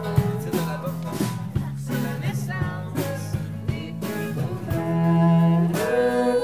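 Live band playing: acoustic guitar and electric bass with drum strikes.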